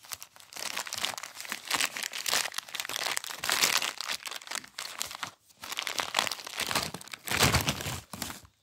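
Crumpled glossy paper flyers used as parcel packing being rustled and scrunched by hand, with continuous crinkling, a short pause about five seconds in, and a loud crumple near the end.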